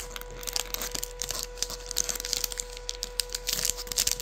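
Feastables chocolate bar wrapper crinkling and tearing as it is opened by hand: a quick, irregular run of crackles.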